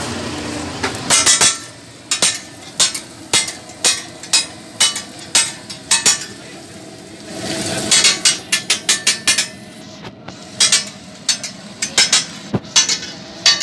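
Metal spatula striking and scraping on a large flat metal griddle (tawa) while egg-coated shami burger patties are turned. It makes sharp clanks about twice a second at first, then quicker clusters of strikes in the second half.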